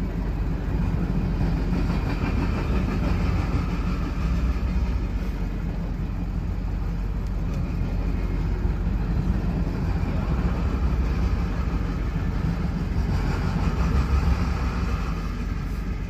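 Freight train of loaded flatcars rolling past a level crossing: a steady rumble of steel wheels on rail that swells twice, heard from inside a stopped car.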